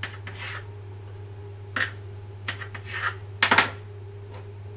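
Kitchen knife cutting through a log of rolled cinnamon-roll dough, with short scrapes and taps of the blade and hands on the countertop, the loudest cluster about three and a half seconds in. A steady low hum lies underneath.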